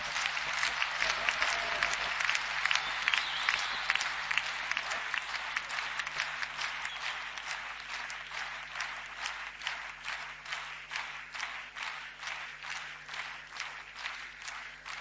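Audience applauding. At first it is a dense scatter of clapping, which settles about a third of the way in into rhythmic clapping in unison, about three claps a second, slowly fading.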